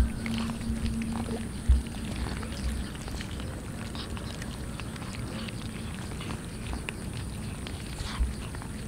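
A group of cats eating cooked rice together, a dense patter of small wet chewing and lapping clicks. A dull low thump just under two seconds in and another near the end.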